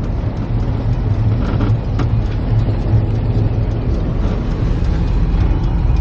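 Steady low rumble of engine and road noise inside a moving van's cabin.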